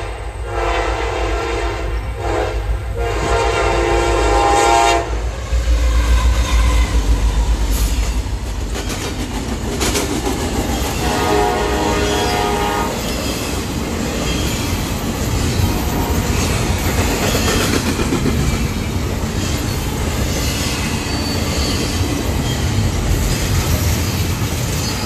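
CN diesel freight locomotives sounding their multi-note air horn for a grade crossing: two blasts, the second long and ending about five seconds in. A deep locomotive rumble follows, then a short horn blast around eleven seconds. For the rest of the clip the container cars roll past with steady clatter from the wheels on the rails.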